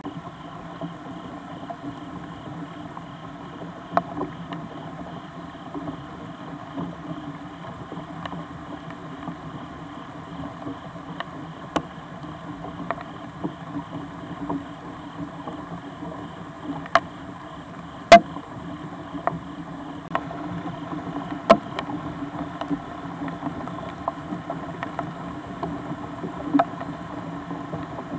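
Steady rain hiss picked up by a trail camera's microphone, with irregular sharp ticks of water drops striking close by every second or few, a couple of them much louder.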